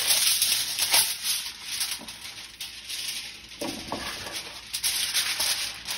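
Aluminum foil crinkling and rustling as a sheet is spread over a glass baking dish. It comes in uneven bursts and is loudest in the first second or so.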